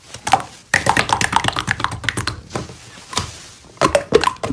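Slime being handled by hand: a dense run of quick sticky clicks and pops that thins out after about two and a half seconds, with a few more near the end.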